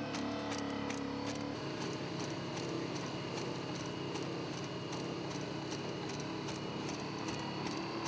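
Legged Squad Support System (LS3) quadruped robot walking: its fuel-powered engine and hydraulics run with a steady drone and whine, overlaid by rapid mechanical clicking and clattering. The pitch of the running changes about a second and a half in.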